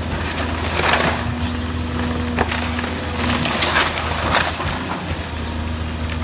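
Volvo EC240 excavator breaking up a wood-frame house: timber splintering and cracking in several bursts, about a second in and again from about two and a half to four and a half seconds. The excavator's engine runs steadily underneath.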